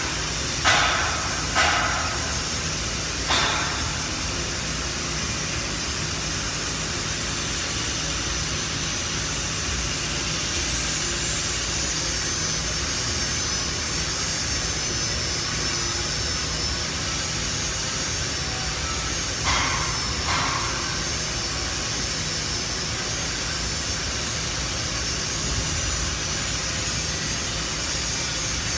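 Handheld angle grinder grinding down steel welds, a steady high whine whose pitch starts to waver about a third of the way in. A few sharp knocks stand out over it, three in the first few seconds and two more about two-thirds of the way through.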